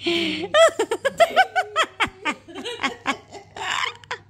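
Laughter: a run of short, rapid laugh bursts, each rising and falling in pitch.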